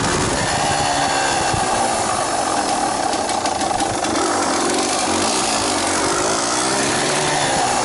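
Yamaha DT230 Lanza's two-stroke single-cylinder engine running, its revs rising and falling several times.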